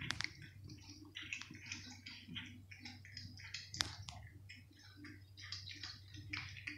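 Cat biting and chewing raw meat held out by hand: quick, irregular wet clicks and smacks, with one sharper click a little before four seconds in.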